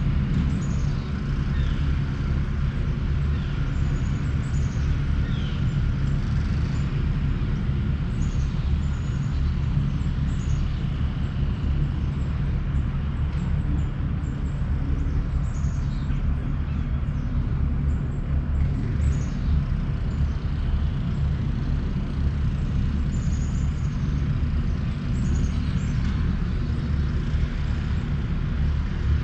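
Steady low engine rumble with scattered high bird chirps throughout.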